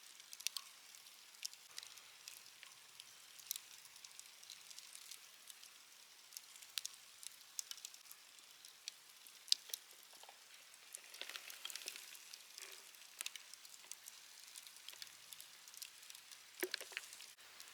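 Wood bonfire crackling, with scattered sharp pops over a soft hiss; one of the loudest pops comes about halfway through, and a cluster of pops comes near the end.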